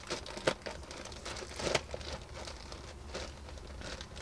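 Clear plastic bag crinkling and crackling as it is pulled open and a new pleated paper cabin air filter is slid out of it, with sharper crackles about half a second and just under two seconds in.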